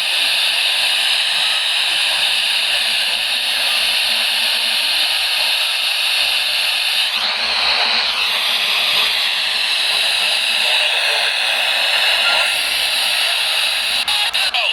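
Radio static from a receiver with no clear signal: a steady, loud hiss, broken by rapid crackling dropouts in the last second.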